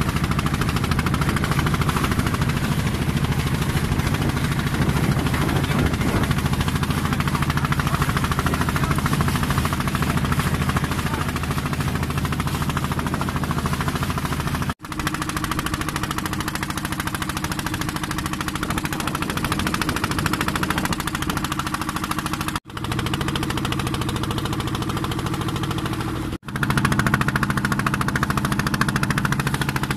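Fishing boat's engine running steadily at a constant speed, with three very brief breaks in the sound.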